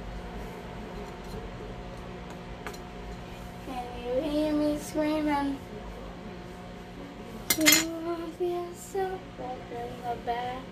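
A child humming a wordless tune in short held notes that step up and down, starting about four seconds in, with one sharp click near the middle and a steady low hum underneath.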